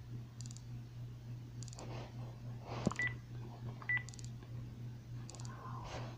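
Two short beeps from a phone keypad, about a second apart, with faint taps, as a number is dialled, over a low steady hum.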